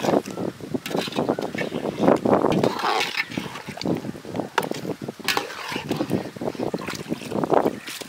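A steel ladle stirring thick curry in a large aluminium pot: wet sloshing, with irregular clicks and knocks as the ladle strikes and scrapes the pot.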